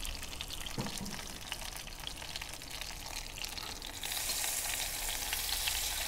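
Hot oil frying fish fillets in a pan with a light crackle. About four seconds in, a battered King George whiting fillet goes into the oil and it turns to a louder, steady sizzle.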